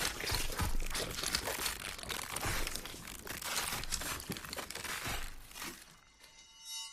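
Dense crackling, crinkling noise made of many small sharp cracks. It thins out and fades near the end, leaving a few faint high ringing tones.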